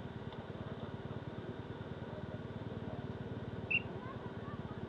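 Quad bike engine running steadily with a fast, even pulse, and a short high chirp near the end.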